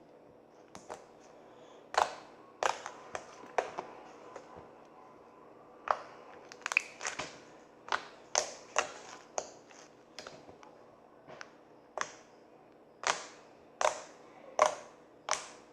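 Slime being poked and squeezed by hand, making sharp, irregular popping clicks as trapped air pockets burst, about twenty of them, some in quick runs.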